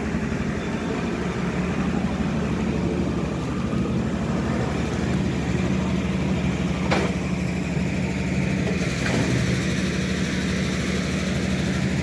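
Backhoe's diesel engine running steadily at an even, low drone, with a brief click about seven seconds in.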